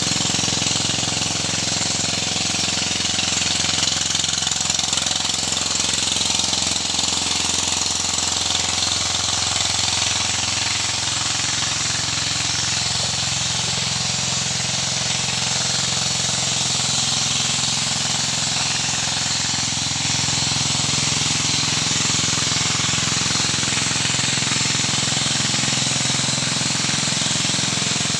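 Small Robin engine running steadily under load, driving a suction pump that draws up gold-bearing mud and water. Its note shifts slightly partway through.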